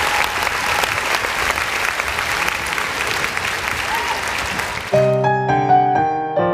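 Applause: dense, steady clapping from many hands. About five seconds in it gives way to gentle piano music.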